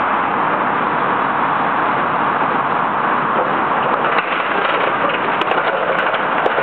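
Steady rushing noise, with cracking and crunching starting about four seconds in as a demolition excavator's shear tears into the steel and timber roof of a building.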